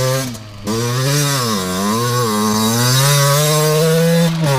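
Two-stroke motocross bike engine revving while being ridden, its pitch falling and rising with the throttle. It drops off sharply about half a second in, dips twice more near the middle, then holds high and steady before a brief dip near the end.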